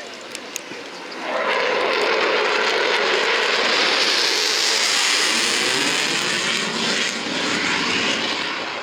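Jet noise from a USAF Thunderbirds F-16 fighter, a loud, even rush that comes in suddenly about a second in and stays loud.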